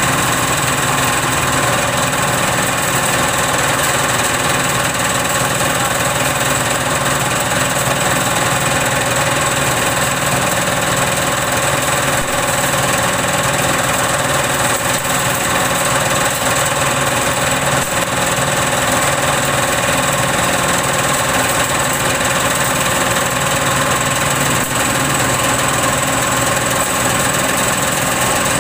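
Organic-waste chopper with a twelve-blade cutter, belt-driven by a stationary single-cylinder diesel engine, running steadily while shredding organic waste for compost.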